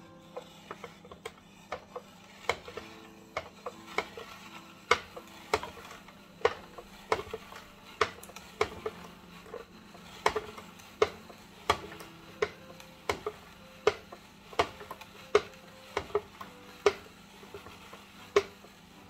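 Hand-cranked plastic spiralizer cutting a carrot into spirals, giving a sharp click about every three-quarters of a second as the crank turns. Faint piano playing underneath.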